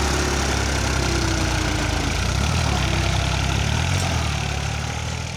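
New Holland 3600-2 tractor's three-cylinder diesel engine running steadily under heavy load while dragging a land leveler through loose soil, fading away near the end.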